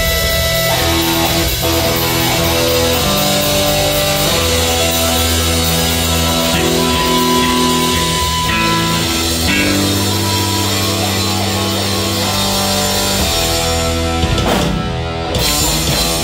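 A heavy metal band plays live: distorted electric guitar, bass guitar and drums. The riff is made of held notes that change pitch every second or so, with a brief break near the end.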